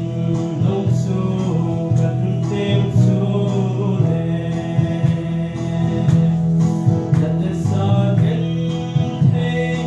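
A man singing a gospel song into a microphone over steady instrumental backing.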